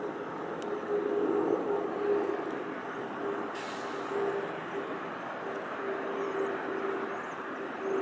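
The Rolls-Royce Trent 700 turbofans of an Airbus A330-243 on approach give steady jet engine noise, with a constant whining tone running through it.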